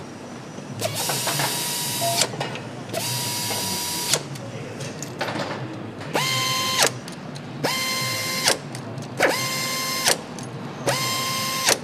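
A powered nut runner tightening bolts in six short runs. Each run is a steady whine; the later ones rise in pitch at the start and fall away at the end, and several end in a short sharp click.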